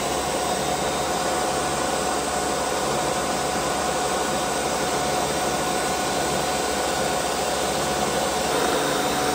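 Countertop blender running steadily at high speed, blending sea moss into gel.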